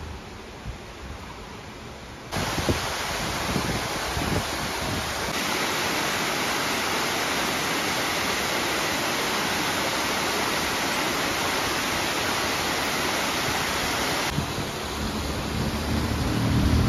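Creek water rushing over rocks and small cascades, a steady rush that starts suddenly about two seconds in after a quieter stretch.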